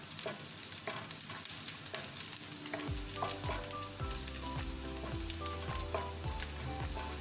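Chopped red onion and garlic sizzling in hot oil in a wok while a wooden spoon stirs and scrapes them, browning the garlic. About three seconds in, background music with a low beat comes in over the frying.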